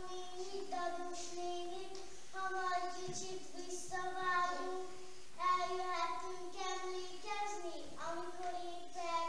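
A young child singing a slow tune in one voice without accompaniment, holding each note for about a second, in phrases with short breaks.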